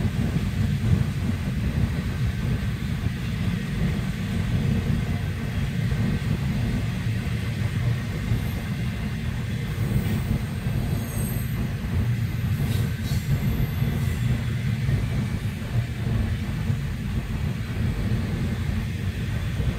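Double-stack container freight train rolling through a grade crossing: a steady low rumble of wheels and cars, muffled as heard from inside a car waiting at the crossing.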